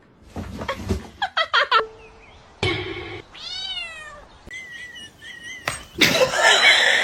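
A cat meowing: one drawn-out meow that rises and then falls in pitch about halfway through, among shorter scattered sounds. A loud rush of noise starts near the end.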